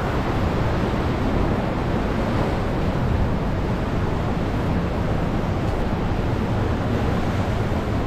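Sea surf washing against a sandstone rock ledge, with wind rumbling on the microphone: a steady rushing noise with no breaks.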